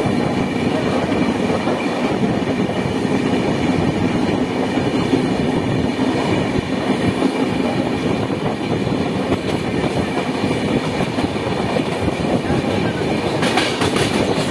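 Indian Railways passenger coach running at speed, heard from its open doorway: a steady, loud rumble of wheels on rails, with a brief brighter rattle about a second before the end.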